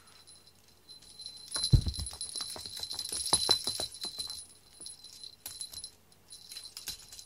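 Small jingle bell shaken irregularly, ringing and rattling in uneven bursts with light knocks, as a cat paws and tugs at a toy; it stops briefly near the end, then starts again.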